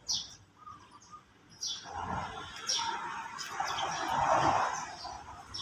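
Birds chirping in short, high calls, several times. A louder rushing noise swells from about two seconds in and fades near the end.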